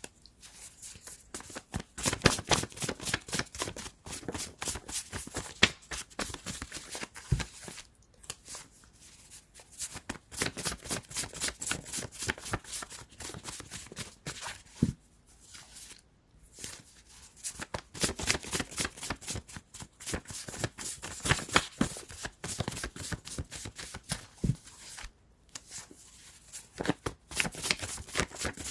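A deck of tarot cards being shuffled by hand: several runs of rapid flicking and riffling card edges, with brief pauses between runs.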